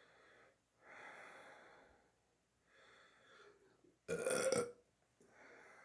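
A person burps loudly once, about four seconds in, after chugging a can of carbonated soda. Soft breathing comes before and after the burp.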